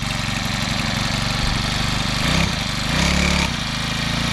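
FRP D8003 mini bike's small 40cc four-stroke engine running just after its first start, once fuel has reached the carburettor. It idles steadily, with its pitch and level rising briefly three times, about two, three and four and a half seconds in.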